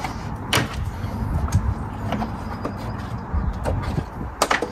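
Irregular sharp plastic clicks and knocks from hands working along the inside of a removed Audi A8 D4 rear bumper cover, about six in all with a quick double knock near the end, over low rustling handling noise.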